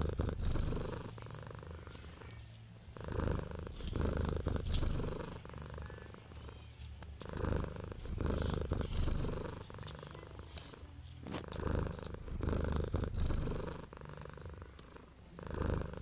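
Tabby cat purring up close, a low rumble that swells and fades in waves every couple of seconds.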